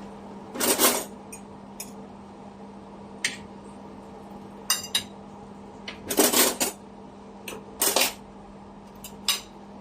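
Cutlery and dishes clinking and clattering in short, irregular knocks, some ringing briefly, with a steady low hum underneath.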